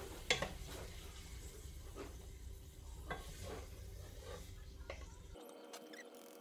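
Wooden spoon stirring meat and onions in a cooking pot, with a few sharp knocks of the spoon against the pot and a faint sizzle of frying.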